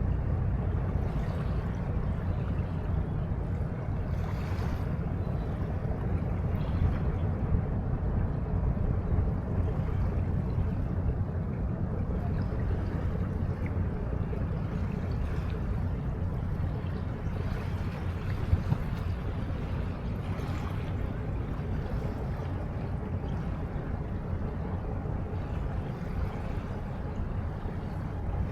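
Steady riverbank ambience: a low, even rumble with a soft hiss of wind and river water, and a couple of faint brief hisses over it.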